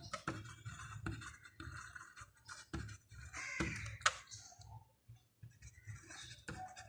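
Pen scratching faintly on paper as a few words are written by hand, with a few sharp clicks and knocks, the loudest about four seconds in.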